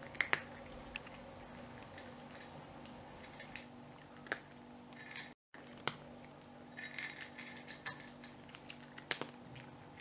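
A cat eating dry kibble from a metal plate: faint, scattered crunches and clicks, with a few sharper clinks against the plate and a quick run of clicks about seven seconds in.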